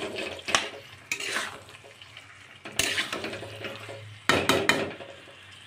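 Metal spatula scraping and knocking against a kadai while fried potato chunks are stirred into a thick spice paste: a handful of scrapes and clanks with short pauses between.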